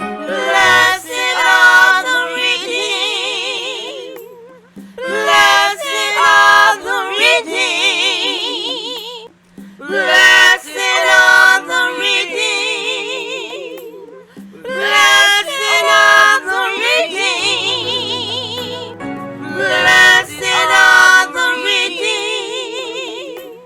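Gospel song: a singer's long, ornamented phrases with heavy vibrato, coming in repeated phrases about every five seconds over a held low accompaniment note.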